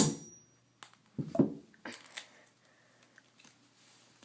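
A hammer striking a plastic Rubik's cube to force a stubborn last piece back in: one sharp blow at the start, then a few lighter knocks and clicks over the next two seconds, then quiet.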